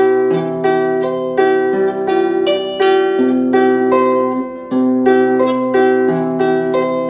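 Background music: plucked harp-like notes in a steady rhythm, cutting off just after the end.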